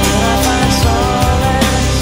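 Background music: a rock-style song with a steady drum beat.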